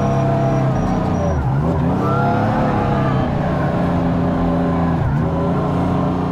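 Kubota R430 compact wheel loader's diesel engine running, heard from the operator's seat, its pitch sagging and recovering twice, about a second and a half in and again near five seconds. A faint high-pitched beeping runs for the first second or so.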